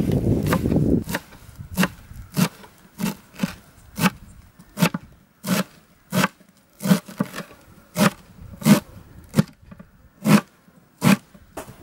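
A kitchen knife chopping fresh coriander leaves on a cutting board: a steady run of sharp chops, about three every two seconds. A low rushing noise comes first, in the opening second.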